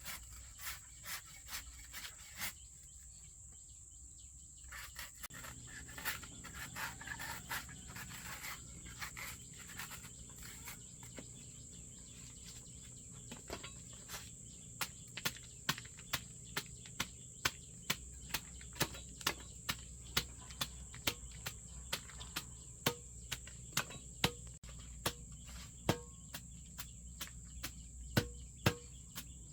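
Crickets chirring in one steady, high-pitched drone, with sharp clicks or knocks over it that turn regular, about two a second, from about halfway through.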